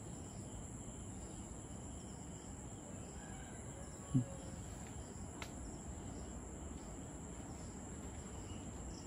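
Insects chirping: a steady high-pitched buzz with faint chirps repeating evenly over a quiet outdoor hiss. A single short low sound about four seconds in.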